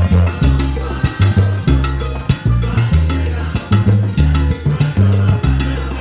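Salsa band playing live: a heavy bass line in long held notes under sharp percussion hits in a steady rhythm, with no singing.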